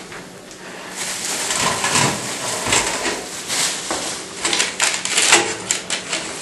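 Plastic wrapping rustling and crinkling as it is pulled off a black steel charcoal-grill bowl, with several sharp clicks and knocks as the bowl is handled.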